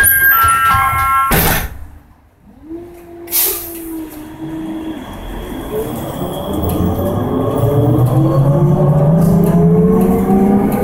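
Ikarus 412 trolleybus pulling away from a stop. Electronic beeping stops about a second in and a sharp knock follows. Then the electric drive's whine climbs steadily in pitch and grows louder as the bus accelerates.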